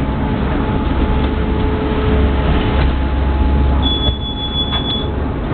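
Tram running along the rails, heard from inside at the front: a steady low rumble of wheels and running gear. About four seconds in a thin high whine sounds for about a second.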